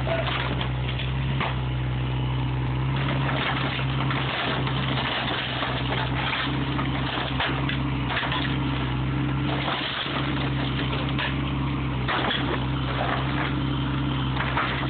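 Bobcat E32 mini excavator's diesel engine running steadily, with wood cracking and splintering and debris knocking as the bucket tears apart timber roof boards.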